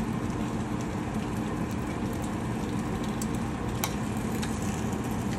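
Spam slices sizzling in a frying pan over the steady hum of a range hood exhaust fan, with a few small sharp ticks.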